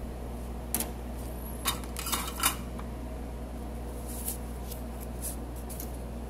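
A few light clicks and taps of a copper perfboard with resistors being handled and turned over on a desk, most of them in a quick cluster in the first half and two fainter ones later, over a steady low hum.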